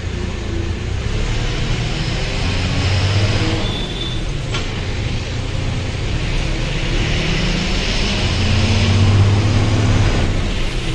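Goods truck's engine running on the road with road noise, its note climbing twice as it pulls, with one sharp click about four and a half seconds in.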